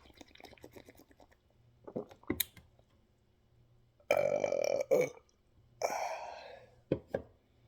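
A person burping loudly: one long, steady-pitched burp about four seconds in, followed by a shorter, breathier one. Before it come small clicks and a couple of soft knocks.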